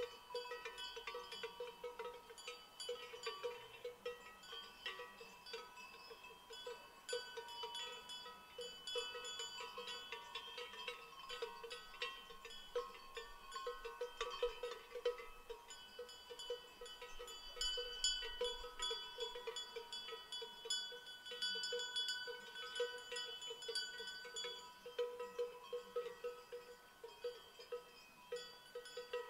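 Livestock bells (cowbells) worn by animals, many bells at several pitches clanking at once in an irregular, continuous jangle.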